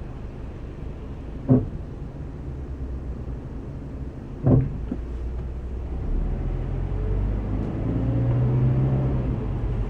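Scion FR-S brakes giving two short creaking noises, about a second and a half and four and a half seconds in, as the brake pedal is gently eased on and off at a stop. After about six seconds the car's flat-four engine pulls the car away, its running sound growing louder.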